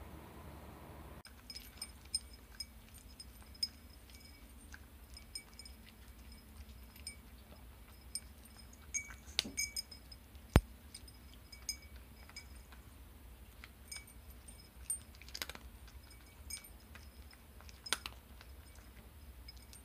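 Orange tabby cat eating dry kibble from a ceramic bowl: irregular small crunches and clinks of pellets against the bowl, with one sharp loud click about halfway through.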